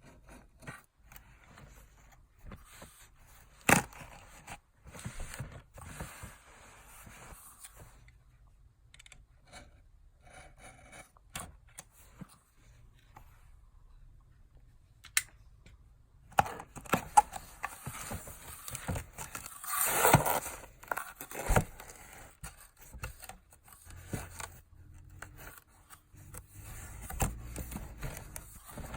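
Sneaker box and paper packaging being handled and opened: scattered scrapes, clicks and rustling, with a sharp knock about four seconds in and a louder burst of paper tearing and crinkling about twenty seconds in.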